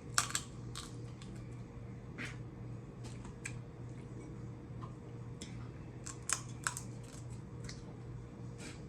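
Snow crab leg shells being cracked and snapped open: scattered sharp cracks, the loudest just after the start and two a moment apart about six seconds in, over a steady low hum.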